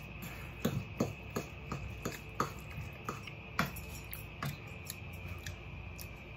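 A fork knocking and scraping in a bowl while mixing guacamole: short, irregular taps about two a second, over a faint steady hum.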